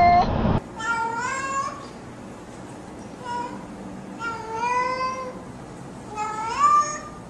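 Domestic cats meowing: one call is cut off about half a second in, then come about four separate meows, several of them rising in pitch.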